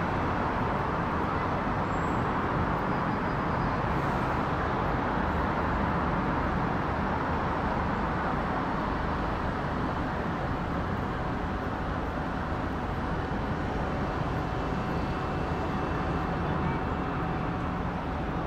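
Steady, distant jet roar from a Boeing 777-200ER's twin turbofan engines passing overhead, with a faint steady whine coming in about halfway through.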